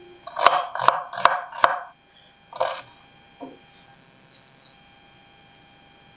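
Kitchen knife chopping a white onion on a wooden cutting board: four quick chops in the first two seconds, then one softer sound and a few faint taps as the pieces are handled.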